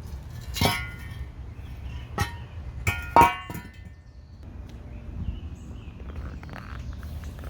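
Metal tools clanging and clinking against metal: four sharp ringing strikes in the first half, the loudest about three seconds in, followed by quieter clicks and rattles.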